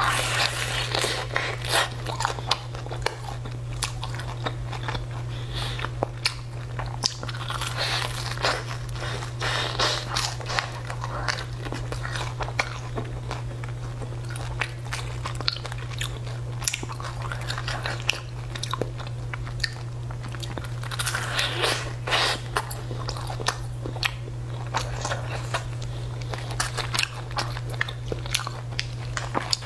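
Close-up eating sounds: crisp bites into a crusty fried burger bun and steady chewing, with many sharp crunches throughout. A steady low hum runs underneath.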